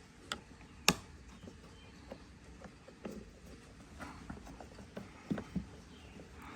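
Scattered light clicks and taps of hand work on a Tesla Model X door as its rubber liner is worked loose with a tool, with one sharp click about a second in.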